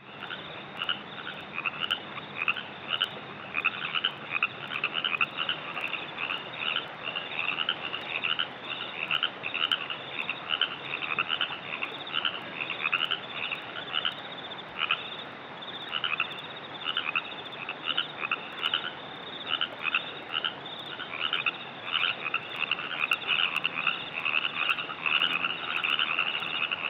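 Baja California treefrogs calling over and over, short two-part 'ribbit' calls repeating rapidly and overlapping. This is the call that became Hollywood's stock frog sound.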